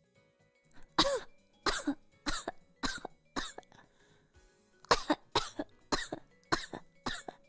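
A woman's voice imitating a baby's cough: a run of about six short, voiced coughs, a pause of just over a second, then about seven more, over faint background music. To the listeners it comes across as more like a child coughing than a baby.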